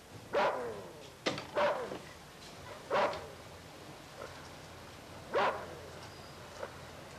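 An animal barking: five short barks at uneven gaps, each dropping in pitch.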